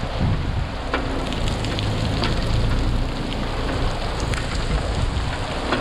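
Water drops falling from a wet rock overhang onto the roof of a slowly moving vehicle, scattered drop hits over a rain-like hiss. The vehicle's engine hums low underneath.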